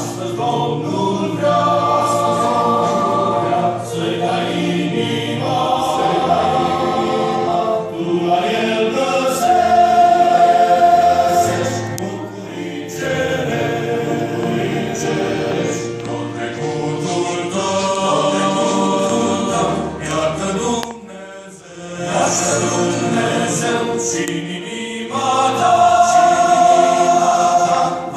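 Mixed church choir of men and women singing a hymn in long held phrases, with a short break between phrases about three-quarters of the way through.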